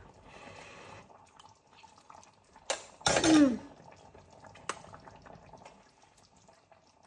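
A woman tasting food off a spoon: a soft breathy sound at the start, a small click, then about three seconds in a short, loud 'mmm' of delight that falls in pitch, followed by another faint click.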